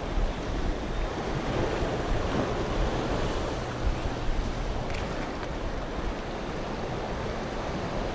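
Sea water washing and lapping, with wind gusting on the microphone.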